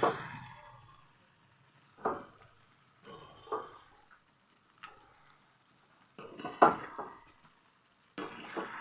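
A spoon stirring jujube pickle in a cooking pan, knocking and scraping against the pan about six times with short pauses between.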